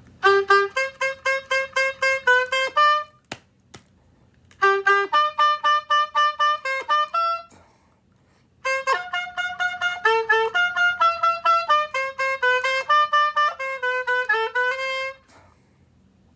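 Oboe playing a simple familiar tune as three phrases of short, separate notes, with two brief pauses between phrases and a single sharp click in the first pause.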